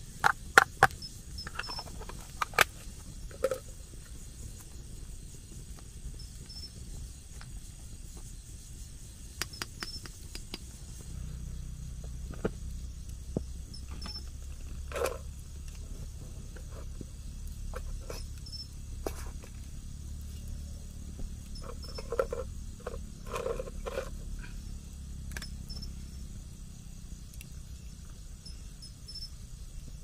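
Night insects trilling steadily at a high pitch, fading about a third of the way in, with scattered sharp knocks and clicks. The loudest knocks come in the first few seconds, with more around the middle and near the end, over a low rumble.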